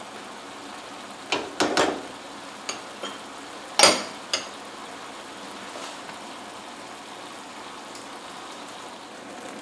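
Tomatoes and green peppers sizzling in a frying pan over raised heat, a steady hiss. A few clicks and knocks of a silicone spatula against the pan and bowl in the first half, the loudest about four seconds in as the spatula is set down.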